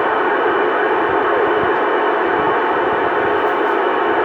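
Steady static from a CB radio receiver on an open channel, a constant hiss with faint wavering tones buried in it.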